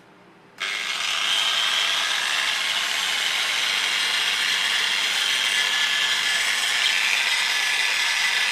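A power tool starts up about half a second in and runs steadily: a loud, even, gritty noise.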